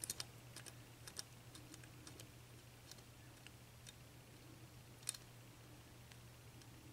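Faint, sparse clicks of a lock pick working the pins inside a 7-pin Dorma mortice cylinder, with the sharpest click about five seconds in, over a faint low hum.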